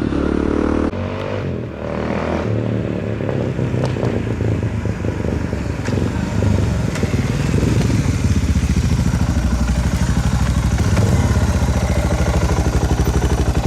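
Suzuki DR650's big single-cylinder engine running through an aftermarket Screaming Demon exhaust, with an even pulsing exhaust beat that grows a little louder about halfway through.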